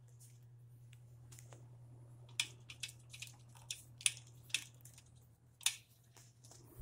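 Emerson 77648-AL electric fan running: its motor gives a faint, steady low hum, with a few irregular light ticks in the middle.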